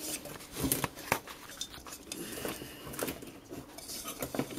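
Scattered light metallic clicks and clinks from small ignition-switch parts and screws being handled and worked loose by hand, the sharpest about a second in.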